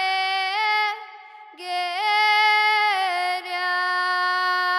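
A girl singing a Samogitian folk song solo and unaccompanied, holding long notes that step up and down between pitches. The voice breaks off about a second in and comes back half a second later.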